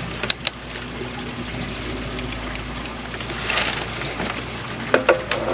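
An engine idling steadily, with a few sharp clicks and knocks and a short rush of noise about three and a half seconds in.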